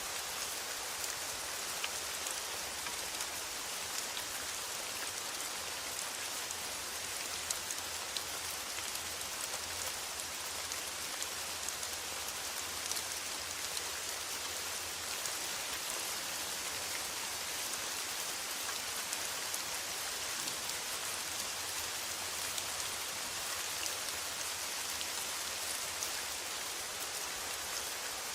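Steady rain on a metal roof: a dense, even hiss of drops with fine individual ticks.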